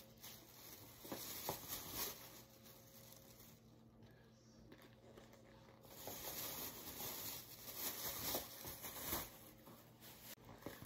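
Thin plastic shopping bags rustling and crinkling as items are pulled out of them, in bursts around one to two seconds in and again from about six to nine seconds.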